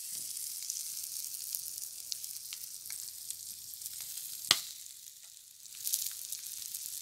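Masala-coated boiled eggs on sticks sizzling in oil on a flat metal griddle over a wood fire, a steady hiss with small crackles; the eggs are about cooked. A sharp tap about four and a half seconds in, then the sizzle briefly dies down and picks up again.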